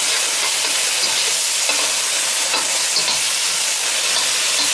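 Chopped tomato and green chili sizzling in hot olive oil with fried onion in a stainless steel kadhai: a steady frying hiss, with a metal spatula stirring and scraping against the pan.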